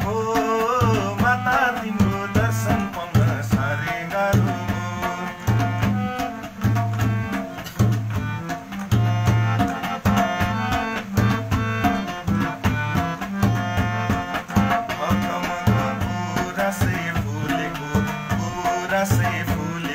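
Harmonium playing a devotional bhajan melody in sustained reed chords, with a hand drum keeping a steady rhythm of deep strokes about once a second.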